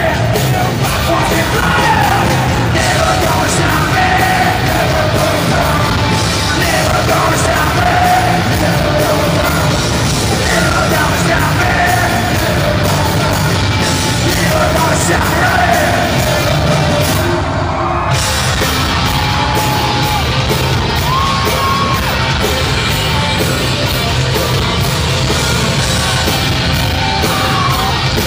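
Live heavy metal band playing loudly, with a singer's shouted, yelled vocals over distorted guitars and drums, heard from the crowd in a large hall.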